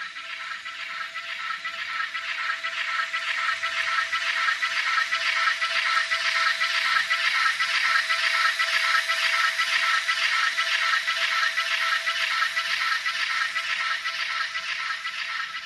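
N-scale model of a Swiss Ce6/8 'Crocodile' electric locomotive running on track. Its small motor gives a steady whine and the wheels add a rapid rattle. The sound grows louder as the locomotive passes close by around the middle, then fades as it moves away.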